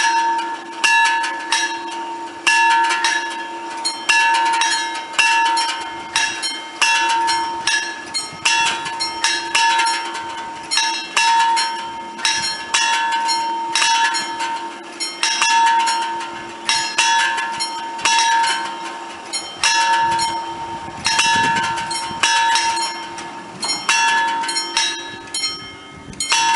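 Level-crossing bells in mixed FS 64 and TD 96/2 bell boxes ringing with the barriers down: repeated metallic strikes a little over once a second, with a second bell's fainter strikes falling between them. A train rumbles past under the bells about three quarters of the way through.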